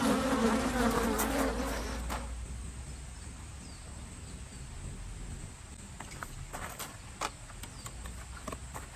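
A flying insect buzzing close to the microphone for about two seconds, then fading away as it moves off, leaving quiet outdoor background with a few faint clicks.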